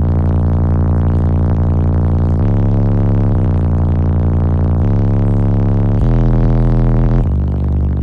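Deep, sustained bass notes of a song played at very high volume through a car audio demo system's subwoofers driven by Down4sound amplifiers. The pitch steps to a new held note every second or two, with brief slides between some of them.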